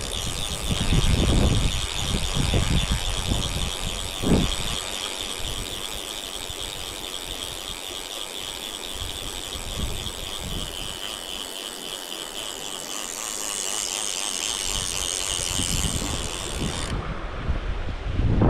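Salmon fly reel's click-and-pawl ratchet buzzing continuously as line runs off it, the sign of a hooked fish taking line. The buzz shifts slightly in pitch near the end and then cuts off suddenly.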